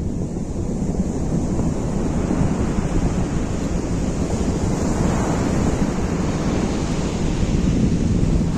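Sea surf washing onto the beach, with a wave swelling about halfway through, and steady wind buffeting the microphone.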